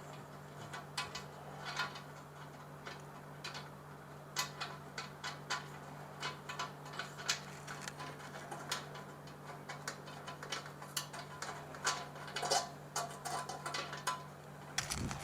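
Small metal washers and fittings clicking and clinking lightly, in irregular taps, as they are handled and fitted back onto a sterilizer heating element's fitting. A faint steady low hum runs underneath.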